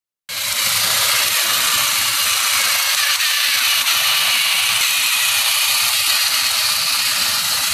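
Battery-powered TOMY Thomas toy engine running on plastic track, its small motor and gears giving a steady whir as it pulls two coaches round. The whir starts just after the opening and holds an even level.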